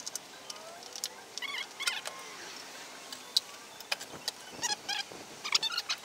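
Scattered light clicks and handling noises from hands working parts loose at the back of a CRT television, with a few short high chirps in between.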